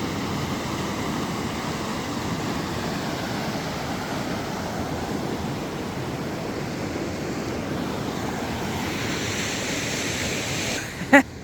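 Molalla River water rushing in a steady, even noise. It drops away near the end, with one brief click.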